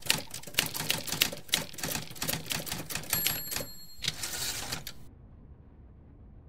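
Rapid, irregular clicking and clacking, many sharp clicks a second, that cuts off abruptly about five seconds in.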